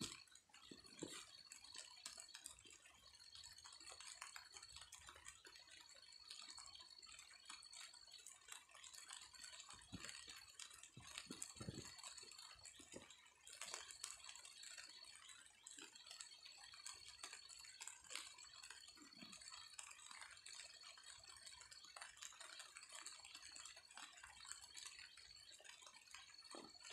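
Faint scratching and small ticks of bare hands scraping loose soil up around seedlings, over a thin high-pitched trill repeating in spells of about a second.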